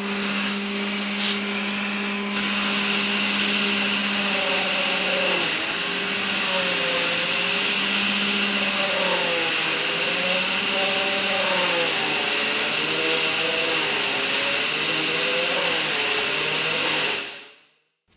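A shop vacuum running steadily as dust extraction, joined after about two seconds by a flexible-shaft Dremel rotary tool with a small sanding drum spinning up with a high whine and grinding into the ebony fretboard to shape the channel for the walnut truss-rod plug. From about four seconds in the hum wavers up and down as the tool works, and the sound fades out about a second before the end.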